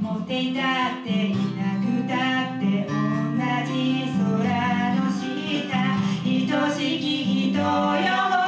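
Two acoustic guitars strummed together under a woman's singing voice: a live acoustic duo performing a pop song.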